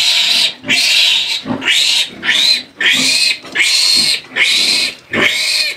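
A newborn Duroc-Landrace cross piglet squealing loudly and repeatedly, a rapid run of short squeals about one and a half a second, as it is held and given an iron injection.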